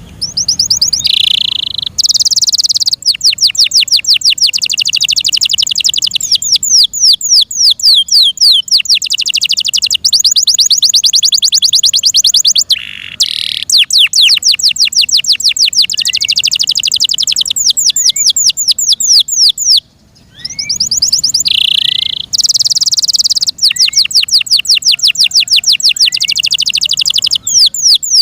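F1 Yorkshire canary singing loud, long phrases of fast trills of repeated high notes, breaking off briefly twice.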